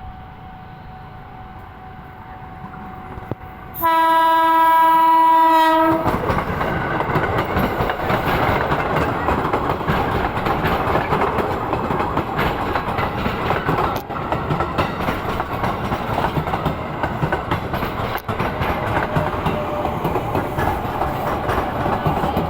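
A train horn gives one loud, steady blast lasting about two seconds, starting about four seconds in. The train then passes close by with a continuous rumble and wheel clatter.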